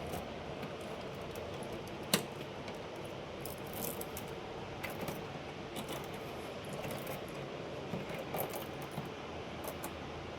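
Scattered light metallic clicks and clinks from server hardware being handled, with one sharper click about two seconds in, over a steady background hiss.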